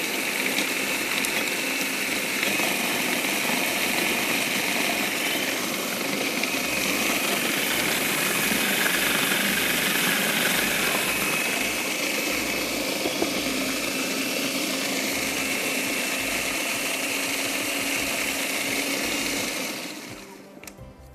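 Electric kitchen grinder running steadily, its motor whining as it grinds a thick red pesto of chillies, red pepper, sun-dried tomatoes and almonds; it winds down and stops near the end.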